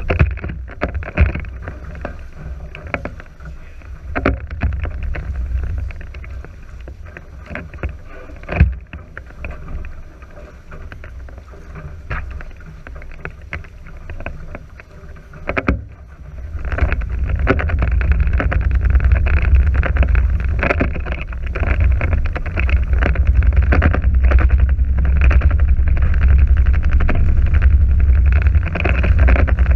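Wind buffeting the microphone and water rushing along the hulls of a Nacra 5.0 sailing catamaran, a rough, gusty rumble with frequent knocks. It grows much louder about halfway through as the boat picks up speed and throws white water off the hulls.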